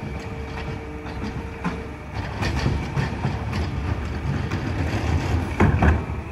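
Peterbilt 520 garbage truck's McNeilus ZR automated arm dumping a cart into the hopper: a steady whine at first, then the truck's heavier low rumble with repeated clanks and rattles as the cart is emptied and lowered, the loudest bangs near the end.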